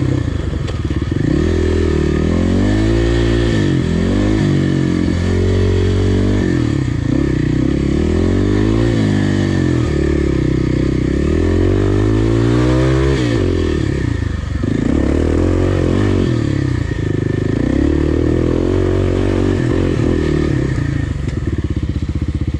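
Kawasaki KLX300 dirt bike's single-cylinder four-stroke engine under way, its pitch climbing and falling over and over as the throttle is opened and rolled off, with a short dip about fourteen seconds in.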